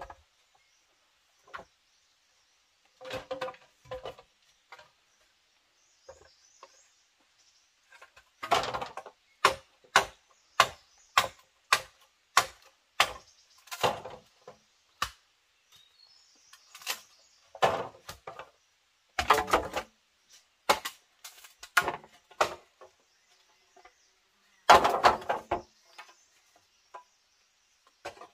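Repeated sharp strikes of a tool on wood, in runs of about two a second with short pauses between, typical of chopping.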